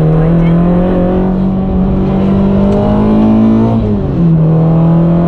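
Modified Peugeot 106 Quicksilver's engine pulling hard under acceleration, heard from inside the cabin; its note climbs steadily, drops sharply about four seconds in as it shifts up a gear, then climbs again.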